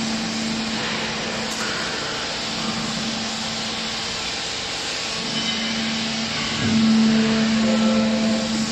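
Hydraulic power unit of a vertical bagging baler running with a steady machine hum and hiss, growing louder about seven seconds in.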